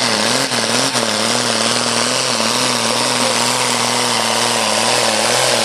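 A John Deere pulling tractor's diesel engine running hard under full load as it drags a weight-transfer sled, black smoke pouring from the stack. It is a loud, steady drone whose pitch wavers slightly.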